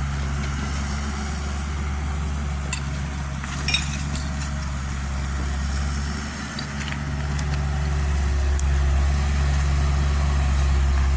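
Kubota U50 mini excavator's diesel engine running steadily, dipping briefly about six seconds in and picking back up, with a few light clicks over it.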